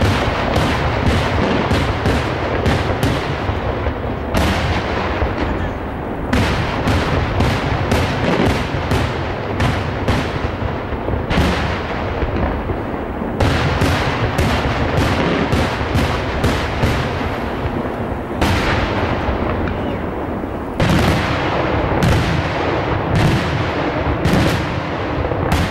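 Daytime fireworks barrage: aerial shells bursting in quick succession, many sharp bangs a second over a low rolling rumble. Fresh, louder volleys break in every few seconds.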